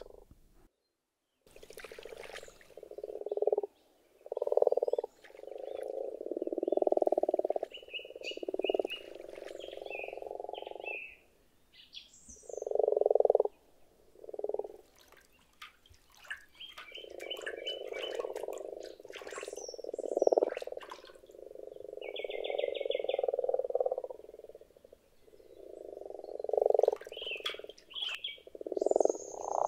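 A breeding chorus of common frogs: repeated low, purring croaks in bouts of about half a second to two seconds, several overlapping, with short higher trills now and then.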